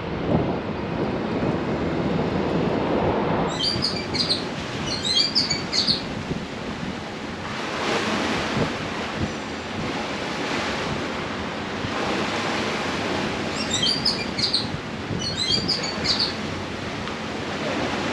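Sea waves washing against a rocky shoreline, with wind on the microphone. A bird calls in short bursts of chirps about four seconds in and again about fourteen seconds in.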